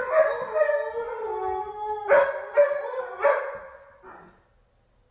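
Dog howling: a run of drawn-out, wavering howls that ends about four seconds in.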